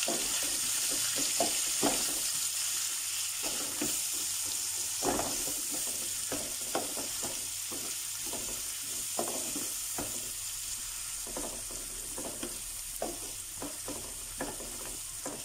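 Chopped onions, green chillies and curry leaves sizzling in hot oil in a frying pan, with a steady hiss and a wooden spoon scraping and knocking against the pan every second or so as they are stirred.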